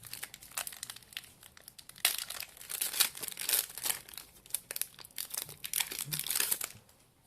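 Foil wrapper of a Pokémon TCG booster pack (Vivid Voltage) being torn open and crinkled in the hands. It is a dense crackling, busiest from about two seconds in, dying away shortly before the end.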